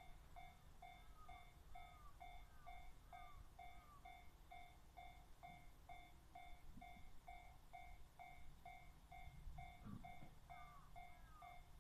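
Japanese railway level-crossing warning bell ringing faintly in an even, rapid repeat of a little over two strokes a second, signalling that the barriers are down for an approaching train.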